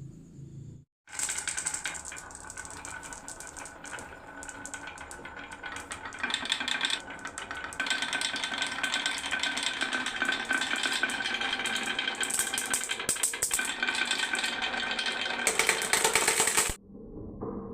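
Marbles rattling down a wooden marble run, a dense clatter of many small clicks. It starts about a second in and cuts off suddenly near the end.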